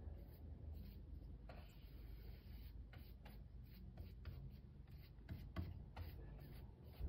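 Faint scratching and rubbing with a few scattered light taps and clicks.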